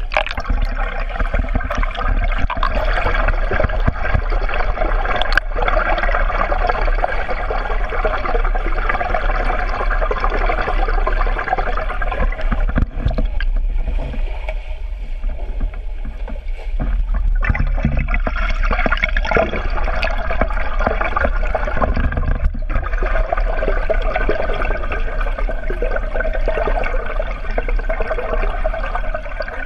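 Underwater pool audio: a steady muffled churn and bubbling of water stirred by a swimmer's kicks and strokes, with a few sharp clicks.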